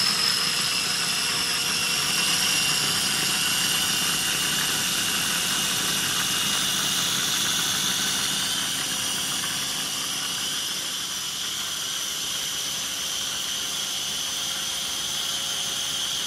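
Small food processor running continuously, its blade chopping garlic cloves with capers, anchovy paste, mustard and lemon juice. It gives a steady motor whine that sags slightly in pitch as it runs.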